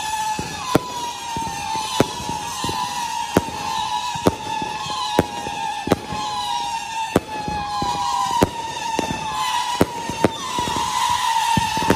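Consumer fireworks going off in a steady barrage: several whistles at once, each falling slightly in pitch and overlapping the next, with sharp bangs about once a second.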